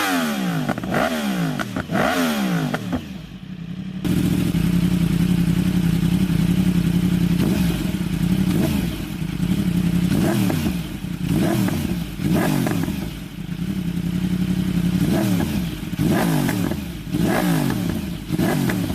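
Yamaha R1 inline-four sport bike with an aftermarket exhaust, revved while stationary: quick sharp blips of the throttle that rise and fall. About four seconds in the sound changes abruptly to a steady held engine note, and a long string of quick blips follows.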